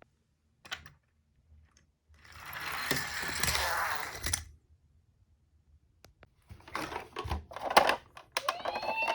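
Die-cast toy ambulance minicars clicking together, then a rattling roll for about two seconds as they run down a slope, ending in a clack. More clicks and clatter follow, and near the end a steady siren-like tone starts.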